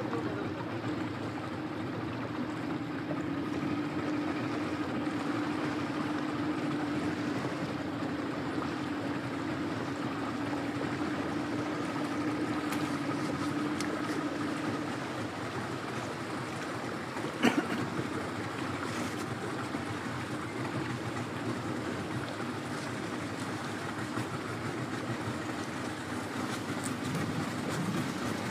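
Boat motor running steadily under way, with water noise, its hum fading about halfway through. A single sharp knock comes a little after halfway.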